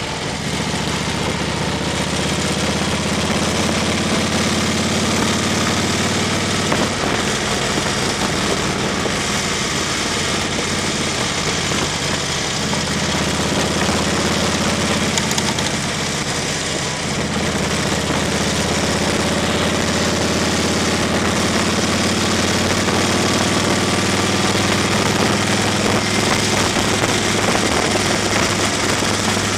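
A car's engine running steadily and its tyres rolling over an unpaved gravel road, heard from inside the car: a low drone under a constant rushing noise.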